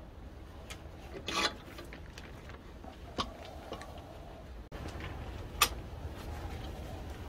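Faint scattered clinks and knocks of rusty steel farm-implement parts being handled in a bench vise, over a low background rumble. The sharpest click comes about five and a half seconds in.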